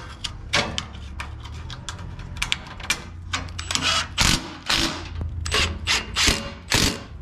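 Milwaukee M18 cordless impact driver running in a string of short bursts, tightening a bolt through a metal body-mount strap while the nut is held with a wrench. Lighter clicks of metal handling come first, and the bursts start about three seconds in.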